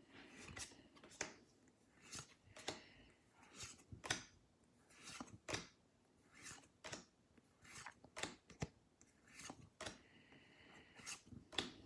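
Pokémon trading cards being flipped through by hand, one card slid from the front of the stack to the back at a time: short, sharp papery snaps and slides, roughly one or two a second.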